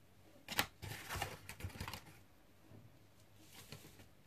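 Metal spoon clinking against a stainless-steel mixing bowl as flour is tipped in: a sharp click about half a second in, then a run of lighter taps, and a few faint ticks near the end.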